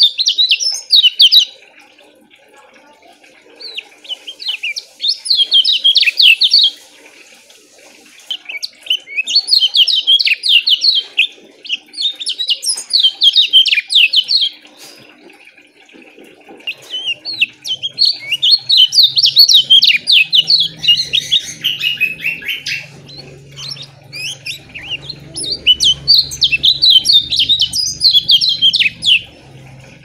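Caged kecial kuning, a white-eye, singing in about six loud bursts of rapid, tightly packed high chirping notes, each a couple of seconds long, with short pauses between; the longest burst comes a little past halfway.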